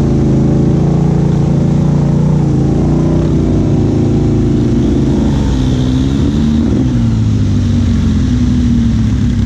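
Can-Am Outlander XMR 1000's V-twin engine running through an aftermarket Big Gun exhaust at a moderate, steady throttle on a mud trail. It eases off about halfway through and settles at a slightly lower pitch.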